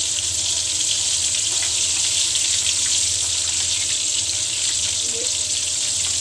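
Flour-coated chicken pieces deep-frying in ghee in a black iron kadhai on a medium flame: a steady sizzle of bubbling fat.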